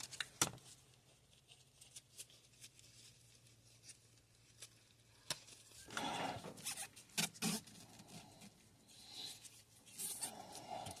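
Faint scattered clicks, scrapes and rustles of hands working on a washing-machine fitting, with short busier bursts of scraping about six seconds in and again near the end.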